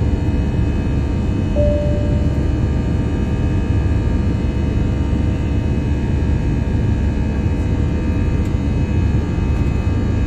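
Aircraft cabin noise: a steady, loud low rumble with several thin, steady tones running above it. A short clear tone sounds briefly about a second and a half in.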